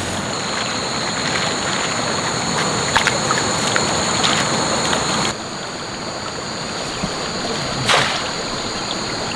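Steady rush of flowing stream water, with a brief splash about eight seconds in as a mesh fish trap is thrown into the water.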